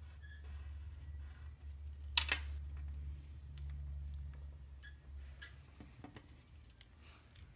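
A pen or marker drawing on paper: a few short scratchy strokes and clicks, the loudest about two seconds in, over a low steady hum.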